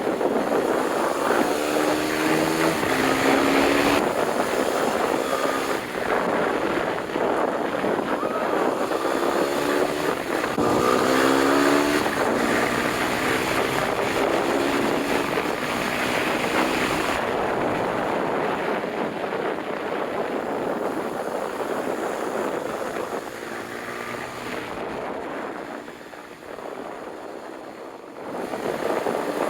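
Dual-sport motorcycle engine under way, its pitch climbing in several runs as it accelerates through the gears, with heavy wind rush over the microphone.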